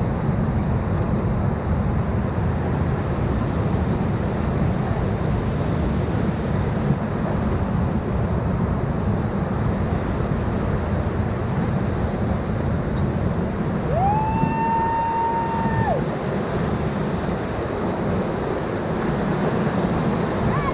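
Rushing whitewater of river rapids with wind buffeting the microphone: a steady, loud rumble. About two-thirds of the way through, a single high held tone rises in over it, lasts under two seconds, and drops away.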